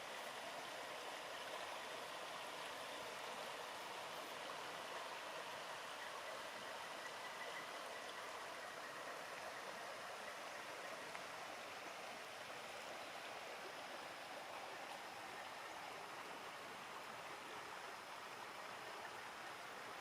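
A creek flowing: a faint, steady rush of running water.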